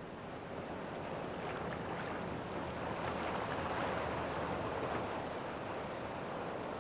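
Water rushing and washing, fading in from near silence and swelling to a steady wash, with a low rumble beneath.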